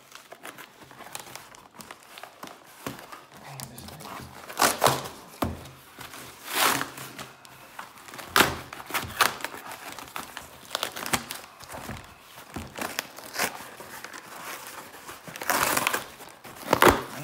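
Cardboard shipping box being torn open by hand, with paper and cardboard crinkling and ripping in a run of irregular tears, the loudest near the end.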